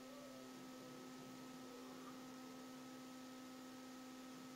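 Near silence: a faint, steady electrical hum of a few constant tones over light hiss.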